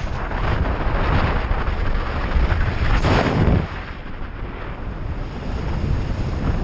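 Rushing wind buffeting a skydiver's camera microphone in freefall, a loud, gusty roar that eases a little a few seconds in.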